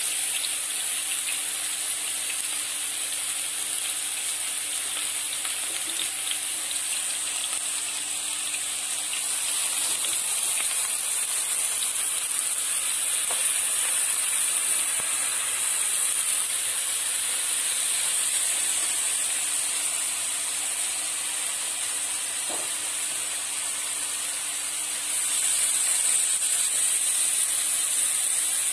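Marinated chicken pieces sizzling as they fry in hot olive oil in a nonstick pan, a steady hiss that grows a little louder near the end.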